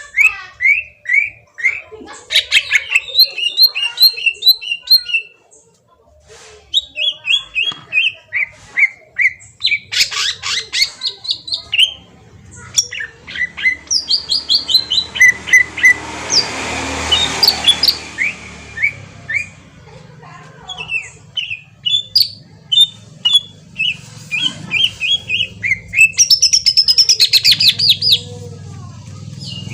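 Green leafbird (cucak ijo) singing loudly in rapid runs of sweeping whistled and chattering notes, phrase after phrase with short pauses. A brief rushing noise swells and fades about halfway through.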